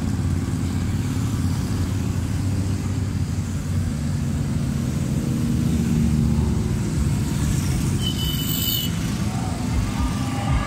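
A column of motorcycles, cruisers and touring bikes among them, riding past at low speed, their engines running together in a steady low drone. A brief high tone sounds about eight seconds in.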